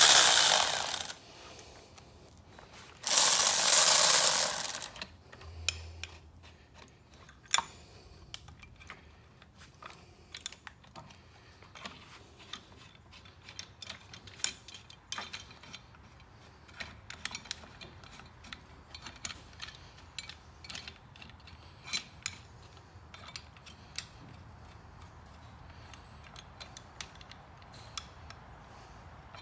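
Milwaukee cordless electric impact running cylinder-head bolts in, in two short bursts: one at the start and a longer one about three seconds in, snugging the bolts down before they are torqued to spec. Afterwards, scattered light clicks and clinks of the socket and tools being handled.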